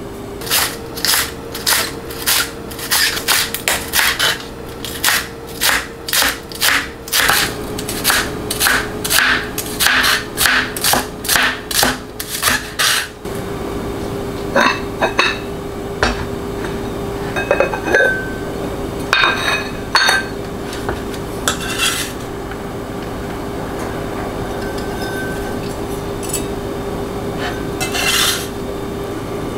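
Cleaver chopping green onions on a plastic cutting board: quick even knife strikes, about three a second, for roughly the first half. After that come occasional taps and scrapes as the chopped onions are pushed together with the blade, over a steady hum.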